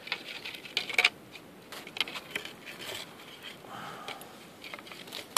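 Wooden stick stirring charcoal powder into melted spruce pitch in a small metal tin, giving irregular scrapes and light clicks against the tin.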